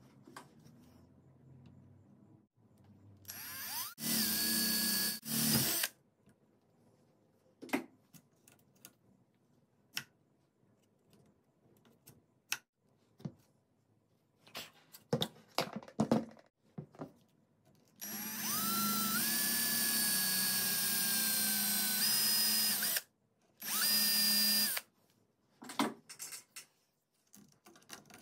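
Electric drill boring into a PVC pipe in separate runs, each starting with a rising whine as the motor spins up: two short runs about four seconds in, a longer one of about five seconds later on, then another short run. Light taps and handling of the workpiece between runs.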